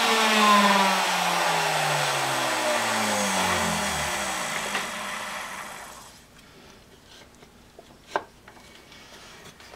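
Router motor of a homemade router lathe spinning down after being switched off, its whine falling steadily in pitch and fading out over about five seconds. A single sharp click follows near the end.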